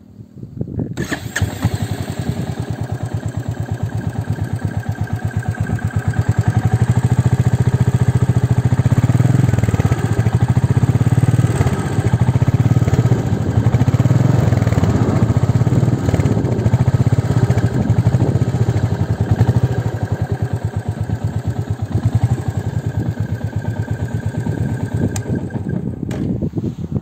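Royal Enfield Meteor 350's single-cylinder engine starting about a second in, then running with a steady, even exhaust beat. It is louder through the middle and is switched off near the end.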